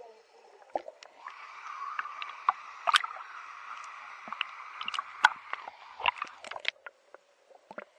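Water splashing and gurgling close to the microphone, with scattered sharp clicks and knocks. It swells about a second in and drops away near the end.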